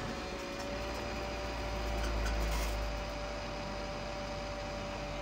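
2007 Toyota Sienna's 3.5-litre V6 idling steadily just after start-up, a low even hum heard from inside the cabin, with a faint steady whine above it.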